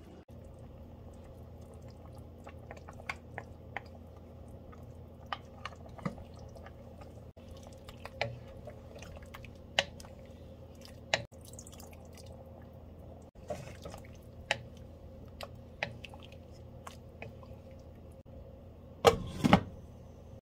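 Spoons stirring thick liquid, with scattered taps, clinks and wet splashes: first a metal spoon in a bowl of flour slurry, then a wooden spoon in a pan of soup. About a second before the end, two loud clunks as a glass lid is set on the pan.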